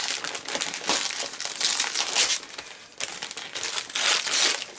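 Christmas wrapping paper crinkling and rustling in irregular bursts as a small present is torn open by hand, with a short lull in the middle.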